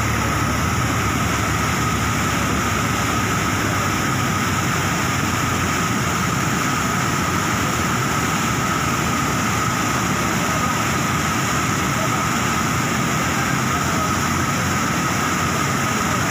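Muddy floodwater rushing and churning over a concrete weir, a loud, steady rush of water.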